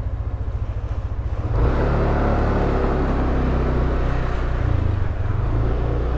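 Yamaha NMAX scooter's single-cylinder engine running through an aftermarket OPP Podium power pipe exhaust. It idles with a pulsing beat, then the throttle opens about a second and a half in and it runs louder.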